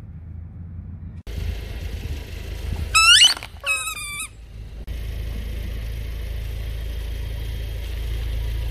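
A Volkswagen car's engine running slowly with a low rumble from its tyres on concrete. About three seconds in, a rubber chicken toy under the tyre gives two loud squawks, each rising and then falling in pitch.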